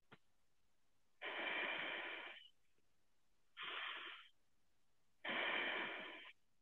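A man breathing deeply and audibly, three long breaths about a second each, taken slowly into the belly in a yoga pose. They sound thin through a video-call audio stream.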